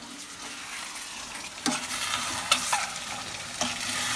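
Chicken curry sizzling in a pan as it is stirred, with fresh cream just added. The stirring utensil knocks against the pan a few times.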